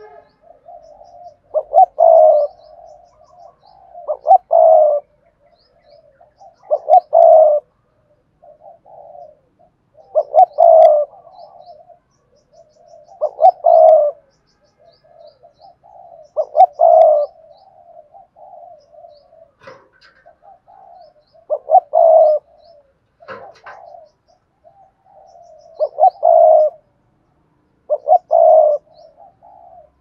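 Spotted dove cooing its song over and over: a loud phrase of coos about every two and a half to three seconds, with softer coos in between.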